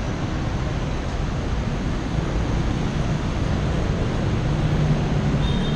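Steady rushing noise of wind on the camera microphone, mixed with the hum of busy road traffic.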